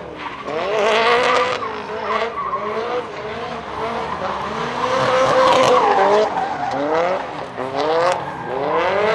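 Drift car's engine revving hard over and over, its pitch climbing repeatedly, while the rear tyres spin and screech through a smoky drift.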